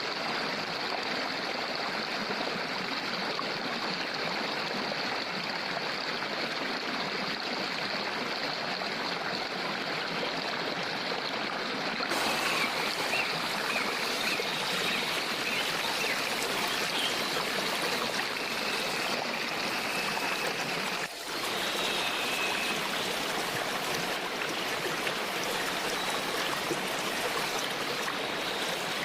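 Waterfall and stream water rushing steadily. The sound turns brighter about twelve seconds in and drops out for a moment about twenty-one seconds in.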